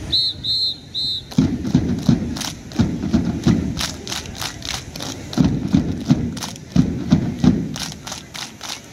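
Three short whistle blasts, then a large group of voices shouting together in rhythmic bursts over a steady beat of thuds, typical of a mass drill display called out in time.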